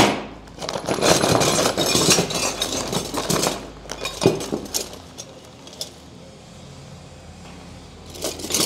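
A tough plastic bag of garage door hardware is torn open and its metal parts (rollers and hinges) are tipped out. It starts with a sharp snap, followed by about three seconds of crinkling plastic and metal pieces clattering onto a wooden board table. A single knock comes about four seconds in, and quieter handling follows.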